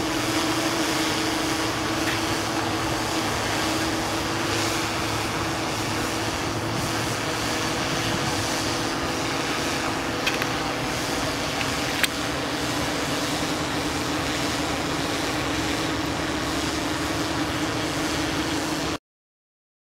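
Quadcopter drone's propellers humming steadily overhead, a held low tone over a steady rushing noise. Two brief clicks come about two seconds apart past the middle, and the sound cuts off just before the end.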